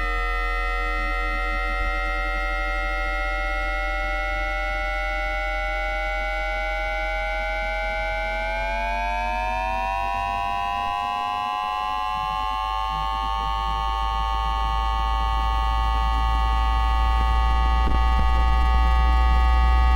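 JR East E2-1000 Series Shinkansen's 3-level IGBT VVVF inverter and traction motor, picked up electrically by an inductor coil rather than a microphone, whining in layered steady tones during acceleration in asynchronous PWM mode. The tones glide slowly upward, rise more quickly about halfway through, then hold steady, under a low hum that grows louder near the end.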